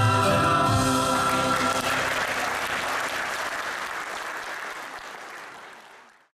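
Audience applauding as the last chord of the song's music dies away about two seconds in; the applause fades steadily and cuts off just before the end.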